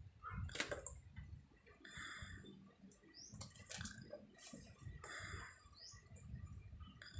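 A sleeping woman snoring: a low, rough, fluttering rattle with a hissing breath about every three seconds.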